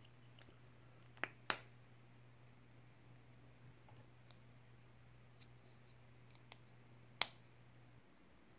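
Hard plastic Playmobil figure parts being pressed and snapped together by hand: two sharp clicks about a second and a half in, fainter small ticks, and another sharp click near the end.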